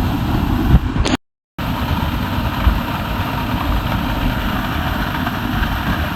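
Waterfall's water rushing in a loud, steady roar, cut off by a brief dropout about a second in.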